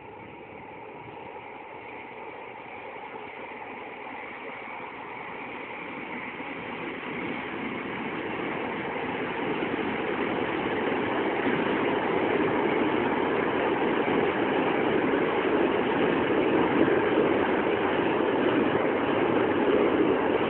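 InterCity passenger train running across a steel truss bridge, its wheels rumbling on the rails and bridge. The noise grows steadily louder over the first twelve seconds as the train comes closer, then holds level.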